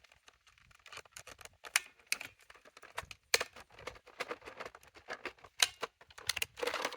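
Irregular light clicks and knocks of hard plastic being handled, from parts of a Dyson cordless vacuum being worked on, with a few sharper clicks among them.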